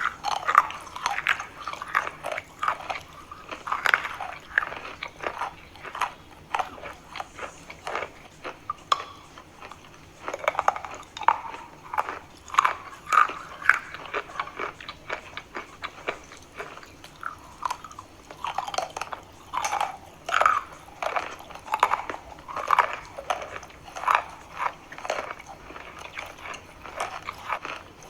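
A person biting and chewing chalk close to the microphone: a rapid, irregular run of dry crunches and crackles, thinning briefly partway through before picking up again.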